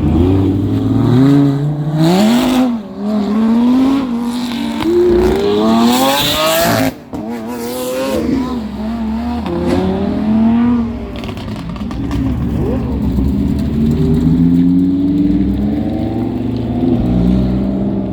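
Car engine being revved again and again, its pitch climbing and dropping with each blip of the throttle; the sound breaks off abruptly about seven seconds in and the revving resumes.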